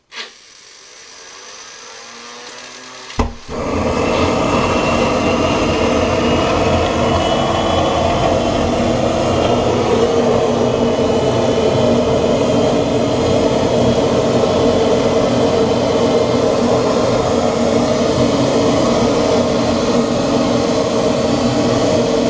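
Home-built 3D-printed jet engine spooling up with a rising sound, a sharp pop about three seconds in, then running loudly and steadily with a rushing noise and a high whine.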